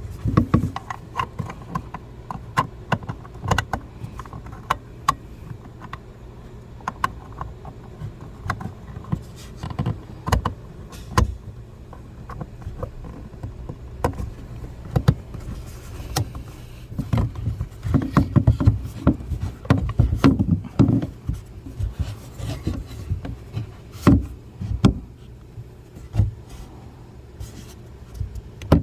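Scattered clicks, taps and rubbing of hand work on car trim and light parts, busiest about two-thirds of the way through, over a steady low hum.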